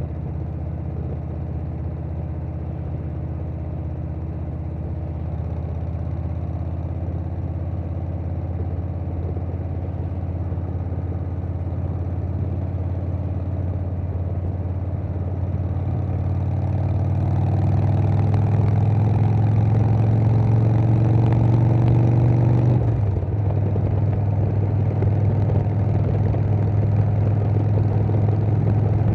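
2020 Harley-Davidson Softail Standard's Milwaukee-Eight V-twin running through a Vance & Hines Big Radius 2-2 exhaust, cruising steadily, then pulling harder with rising pitch and loudness before the pitch drops suddenly at an upshift about two-thirds of the way through. Wind noise rises along with the speed.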